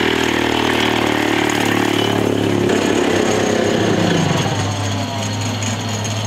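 Pull-start two-stroke minibike engine, originally from a concrete saw and fed by a Mikuni-style carburettor, running steadily under a rider, a little quieter after about four seconds. It is running short of fuel (lean), and a bigger main jet is to be fitted.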